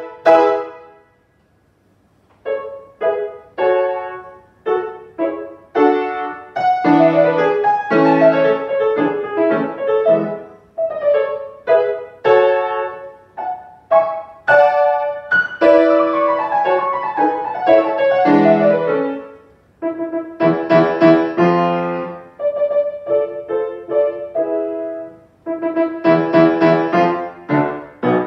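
Grand piano played solo, chords and quick runs of notes, pausing for about a second near the start before the music picks up again.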